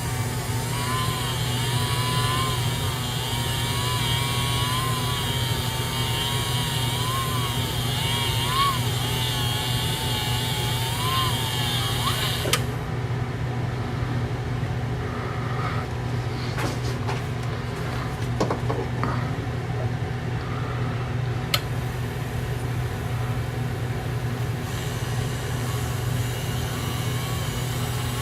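Small motor of a sharpening wheel running with a steady hum while an engraving graver is worked against it. A wavering whine and hiss over the first twelve seconds cut off suddenly, a few light clicks follow, and the hiss comes back near the end.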